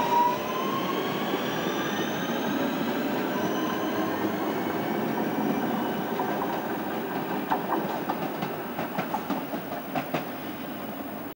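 Electric multiple-unit train running past and pulling away, its traction motors giving a whine that rises steadily in pitch over the first few seconds over a steady rumble. Near the end the wheels click over rail joints as the sound fades.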